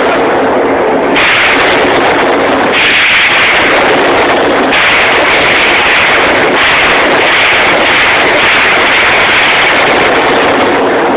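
AR-15 rifle firing a string of shots, spaced about every one and a half to two seconds. The phone's microphone is overloaded by the blasts, so they blur into a continuous distorted roar instead of separate cracks.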